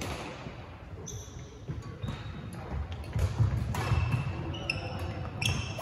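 Play on an indoor court: footsteps thudding on the floor and sneakers squeaking, with a few sharp knocks. The thudding is heaviest in the middle, and most of the squeaks fall in the second half.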